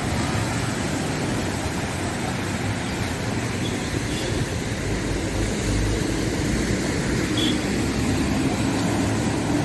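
Steady road traffic noise: a continuous low rumble of vehicles on the road.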